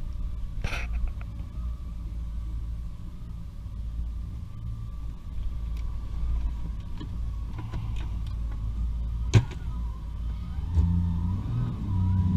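Motorboat engine running at low speed with a steady low rumble, getting louder near the end as the throttle is opened. A sharp click about nine seconds in.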